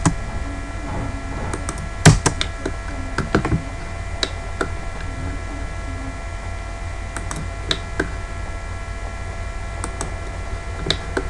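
Computer keyboard keys and mouse buttons clicking in scattered taps, about one every second or so, over a steady electrical hum.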